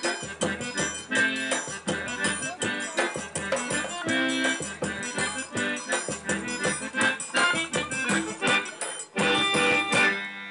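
Eight-bass button accordion (pé de bode) playing a rhythmic tune with a snare drum and a pandeiro. About nine seconds in the drumming stops and the accordion holds a final chord, ending the piece.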